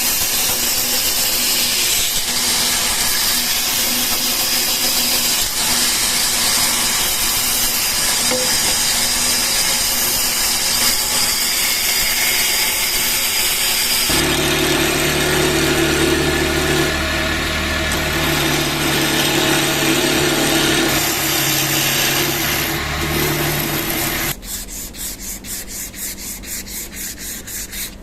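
Sanding on wood, a continuous rasping scrub. About halfway through a motor hum joins it, as from a power sander. Near the end it gives way to quieter, even back-and-forth strokes about three a second.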